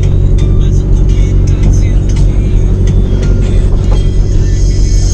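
Loud music with a heavy, continuous bass line playing through a VW Saveiro's aftermarket car sound system while the pickup drives.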